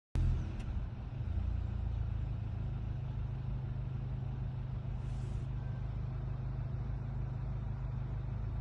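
FAW car engine idling steadily with a low, even hum, cutting in abruptly at the start.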